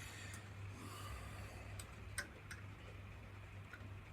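Faint scattered metallic clicks as a metric Allen key is worked on a screw in a wood lathe's Reeves drive, a few sharp ticks over a low steady hum.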